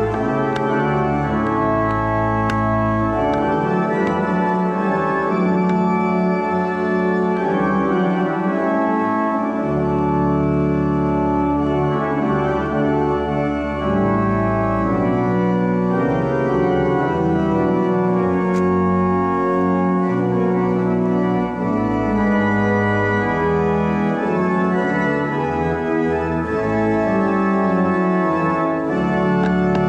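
Church organ playing slow, full chords with deep sustained bass notes, the harmony changing every second or two.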